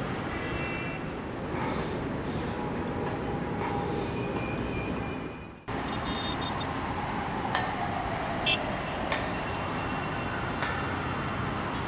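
Steady city traffic noise with a few short high tones and clicks over it. The sound drops out for a moment just over halfway, then carries on.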